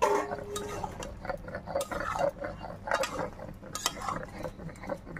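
A metal spatula stirring and scraping chopped bottle gourd in a steel wok, together with the rasping of a stone roller grinding spices on a grinding stone. A metal clink with a short ring sounds right at the start.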